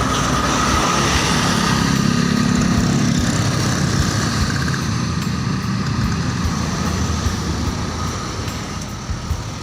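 A large bus passing close by, its engine rumble and tyre noise loud and steady, then growing quieter over the last couple of seconds as it pulls away.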